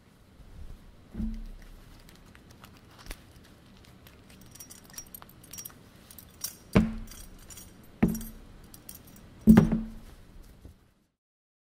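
Small metal pieces jingling and clinking, with four dull thuds, the last and loudest near the end.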